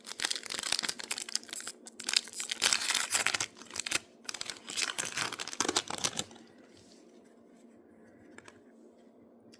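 Wrapper of a 2023 Topps Chrome baseball card pack being torn open and crinkled, in a run of rustling tears over about six seconds, then stopping.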